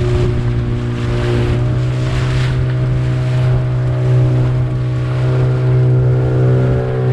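Fishing boat's engine running at a steady cruising speed, a constant low drone, with rushing water and wind noise around it.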